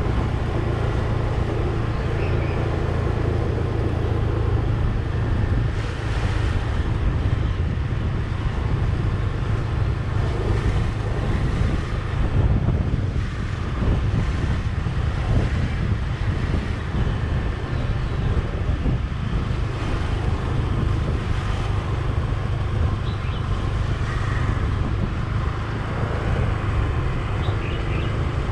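Steady low wind rumble on the microphone mixed with road and engine noise from a slowly moving vehicle.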